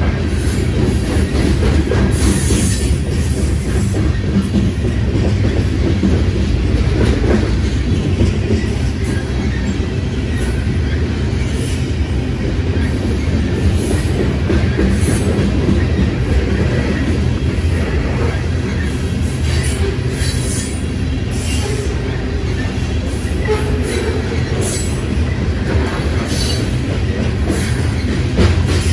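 BNSF covered hopper cars of a grain train rolling past close by: a steady rumble of steel wheels on rail, with short high-pitched wheel squeals every few seconds.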